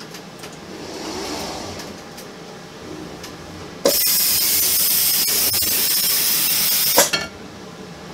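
A robot arm's vacuum suction gripper switches on with a click about four seconds in, hisses loudly and steadily for about three seconds while it holds the picked candy bar, then cuts off with a sharp pop as it releases the bar. Before the hiss there is a quieter mechanical whir as the arm moves.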